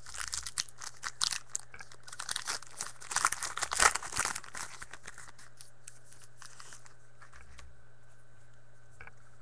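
Foil wrapper of a trading-card pack being torn open and crinkled in the hands for about the first five seconds, then only light handling of the cards.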